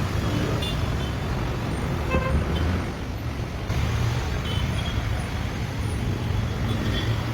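Traffic at a busy bus stand: buses and other vehicles running with a steady low rumble, and a short horn toot about two seconds in.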